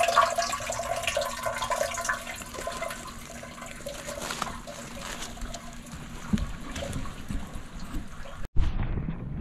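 Water gurgling and trickling as a Zoeller M98 yard sump pump runs and pumps out the low area's collected rainwater. It is louder in the first couple of seconds, with a short break near the end.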